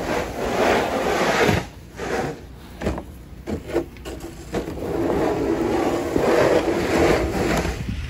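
Long-handled snow brush sweeping packed snow off a car's roof and windshield: long scraping swishes at the start and again from about five seconds in to near the end, with a few short knocks in between.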